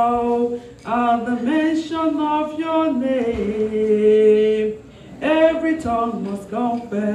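Unaccompanied worship singing led by a woman's voice, in long held phrases with short breaks about a second in and again about five seconds in.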